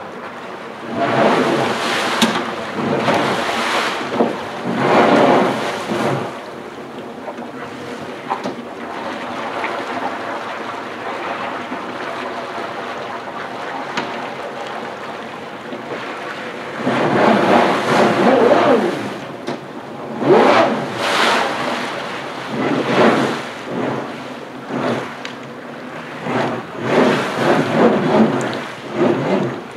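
Yamaha FX 160 jet ski engine running, revved in repeated bursts so the jet pump churns the pool water, settling to a steadier, quieter run in the middle stretch before revving in bursts again for the last dozen seconds.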